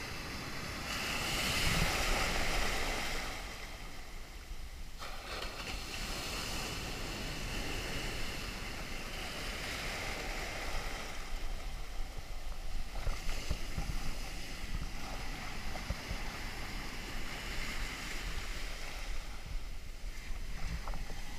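Rough, storm-driven surf breaking and foaming around the camera at water level: a steady wash of white water that swells into louder surges every few seconds, the loudest about two seconds in.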